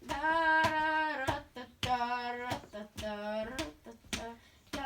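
A child's voice singing three long, held wordless notes, each about a second long with a slight glide at the end, over sharp clicks about twice a second.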